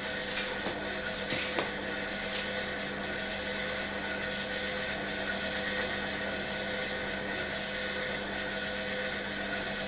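Steady electrical hum over an even hiss, with a few faint clicks in the first two seconds.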